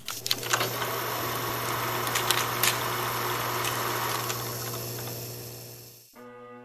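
Cine film projector sound effect: a steady mechanical whirr with a low hum and scattered clicks, fading out about five to six seconds in. Bagpipe music with a held drone starts just before the end.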